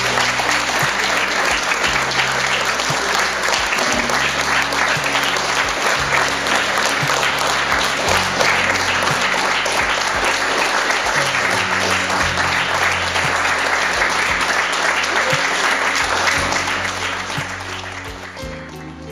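A theatre audience applauding, with music playing underneath; the clapping fades away over the last few seconds.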